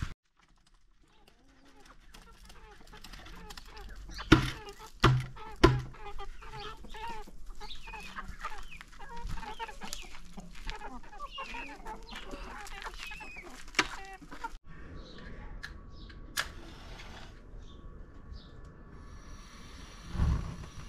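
Chickens clucking as a flock feeds, with three loud thumps about four to six seconds in. The clucking stops about two-thirds of the way through, leaving a quieter background with one more thump near the end.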